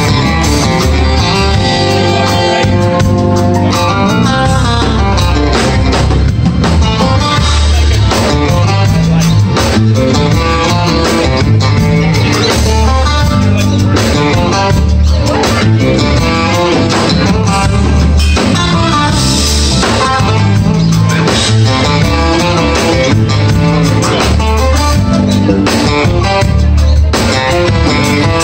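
A live band playing loud, unbroken instrumental music: electric guitar to the fore over electric bass and drum kit.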